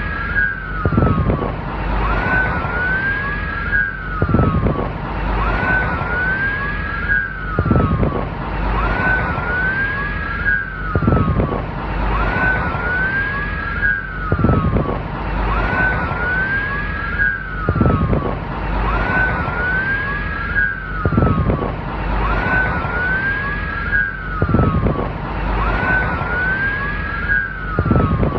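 Police car siren sounding over a steady low traffic rumble, its tone sweeping up and down in a pattern that repeats evenly about every three and a half seconds.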